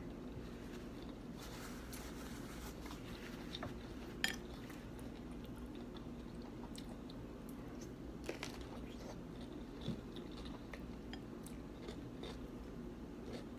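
A person chewing and crunching food close to the microphone, with scattered short clicks and taps, over a steady low hum.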